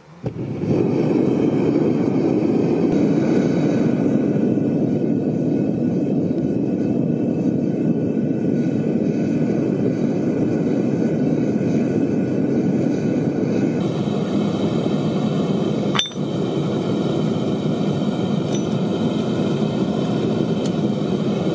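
Gas burner of a small metal-melting furnace running steadily with a loud, even rushing noise that starts abruptly about half a second in. A single sharp click about two thirds of the way through.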